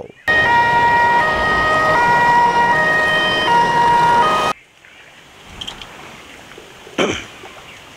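Electronic siren tones stepping between several pitches over a harsh hiss, cutting off suddenly about four and a half seconds in. A faint knock follows near the end.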